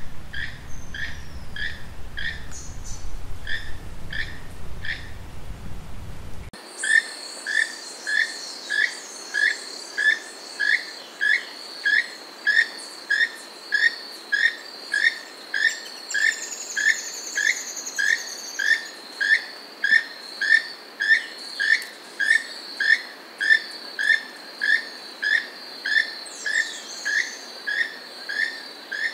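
Keel-billed toucan calling: a short croaking call repeated steadily, about one and a half to two calls a second. About six seconds in, the background changes and a steady high insect drone runs under the calls.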